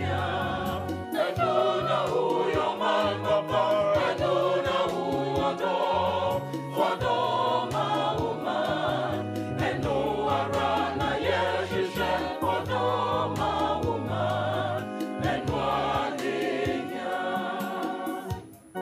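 Background music: a gospel-style song with several voices singing together over a bass line and a steady beat.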